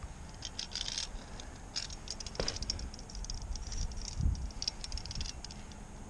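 Light scratchy rattling and clicking in scattered clusters from a steel tape measure handled against the end of a frozen log, over a low rumble.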